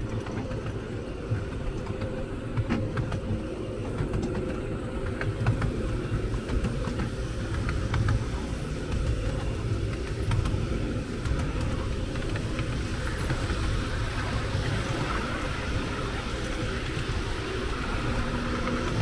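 Miniature railway train running along the track: a steady low rumble with scattered light clicks.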